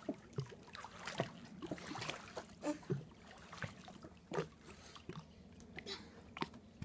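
Swimming-pool water splashing and sloshing as a child paddles and climbs out of the pool, heard as a scatter of short, irregular splashes and drips.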